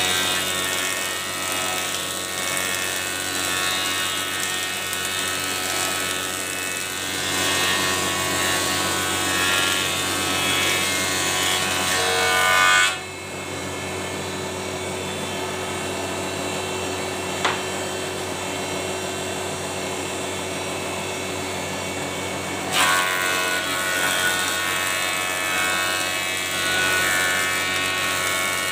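Thickness planer, modified for a slow feed, running with its cutter head planing a board: a loud steady machine sound with a hiss of cutting. About 13 s in the cutting noise drops away and the planer runs on with no board in it, then the loud cutting resumes about ten seconds later as the next pass is fed.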